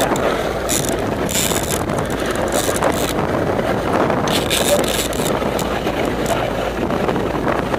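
Steady rushing noise of wind and sea on a small open boat, with the boat's outboard motor running underneath and several brief hissing surges.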